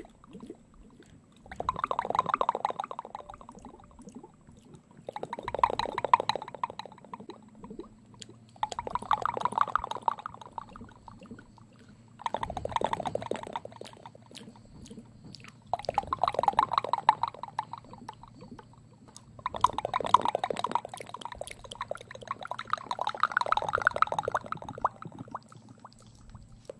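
Wet ASMR mouth sounds made close to the microphone through a cupped hand: bursts of dense clicking and smacking, each about two seconds long, repeating every few seconds, seven times.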